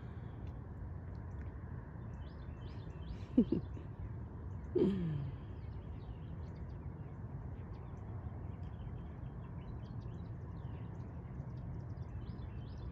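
Outdoor morning ambience: a steady low background rumble with many faint, short bird chirps. A brief sharp double sound comes about three and a half seconds in, and a person's short falling sigh about a second later.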